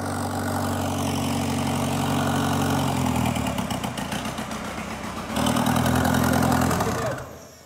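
Converted LADA four-cylinder turbodiesel engine running, the turbo blowing hard through its unconnected pipework. It sags for about two seconds midway, picks up again, then dies away near the end.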